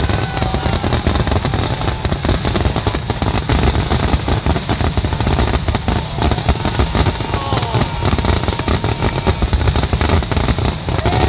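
A dense barrage of aerial fireworks: rapid overlapping bangs and crackling from many shells bursting at once, with show music playing underneath.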